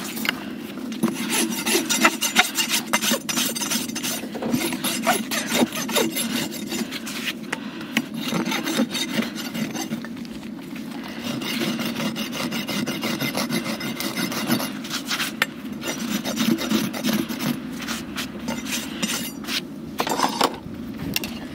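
Farrier's hoof rasp filing a horse's hoof: a steady run of scraping strokes with a few short pauses.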